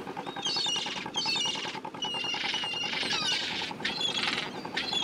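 Gulls calling repeatedly in high, squealing cries, about half a dozen calls over a steady low hum.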